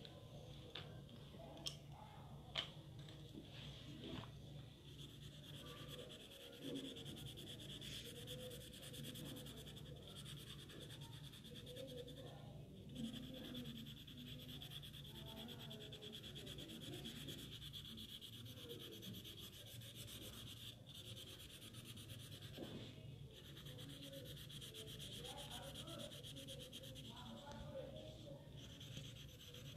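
Felt-tip sketch pen rubbing and scratching on paper as an area is coloured in, faint, with a couple of sharp clicks near the start.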